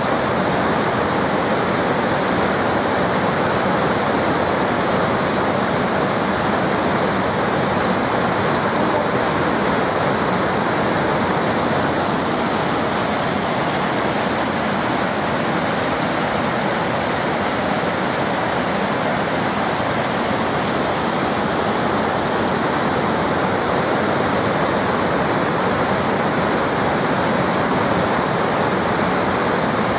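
Waterfall pouring, a loud, steady, even rush of falling water.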